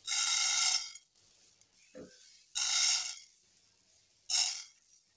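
Whole green gram (moong) poured from a plate into a hot, dry pan for dry roasting, the grains hitting and scattering across the pan. It comes in three bursts: a long one at the start, another near the middle and a short one near the end, with a single soft knock about two seconds in.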